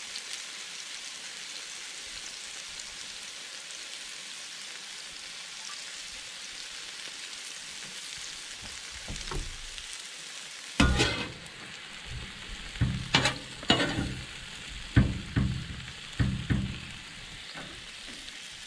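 Steak strips and sliced peppers sizzling steadily on a 22-inch Blackstone griddle's hot flat-top. From about 11 seconds in, a run of sharp clacks and scrapes as a spatula turns the meat on the griddle.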